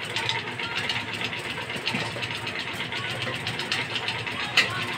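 Chili chicken gravy boiling hard in a metal pot on a gas burner, bubbling and spattering steadily over the burner's low hum. A sharp click about four and a half seconds in.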